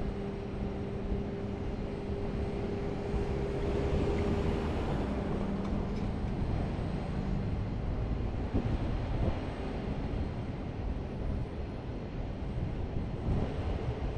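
Street traffic: a steady hum for the first few seconds, then the rumble of cars driving toward the corner and past.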